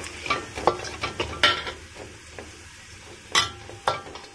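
A spatula scraping and clinking against a metal wok as minced garlic is stirred in hot oil, over a light sizzle. A handful of sharp strokes, the loudest about a second and a half in and again past three seconds.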